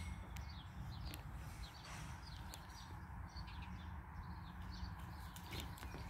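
Faint outdoor ambience: small birds chirping in short, scattered calls over a low steady rumble, with a few soft clicks.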